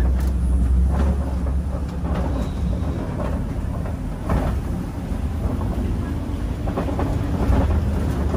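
Open-sided safari ride truck driving over a rough dirt track: a steady low rumble of engine and road noise, with scattered knocks and rattles from the vehicle's frame. The low rumble eases about a second in and swells again near the end.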